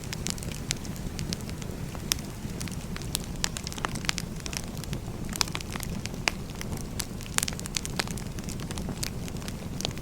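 Firewood burning: a steady low rumble of flames with many sharp, irregular crackles and pops.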